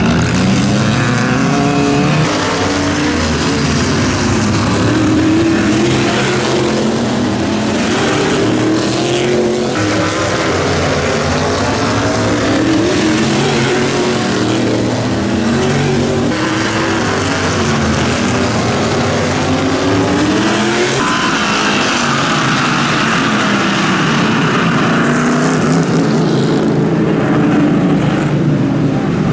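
Several stock car engines running hard in a race, their pitch rising and falling over and over as the cars pass and accelerate through the turns.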